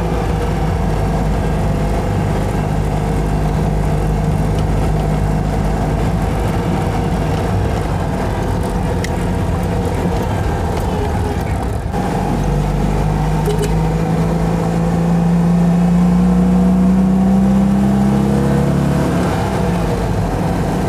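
Citroën 2CV's 602 cc air-cooled flat-twin engine pulling the car along, heard from inside the cabin, with no untoward noises. The note dips briefly about twelve seconds in, then rises steadily and grows louder for several seconds as the car accelerates, and drops again near the end.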